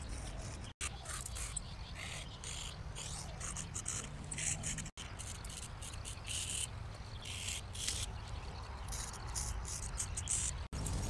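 Insects chirping in short, irregular high-pitched bursts over a steady low outdoor rumble, broken by three brief dropouts.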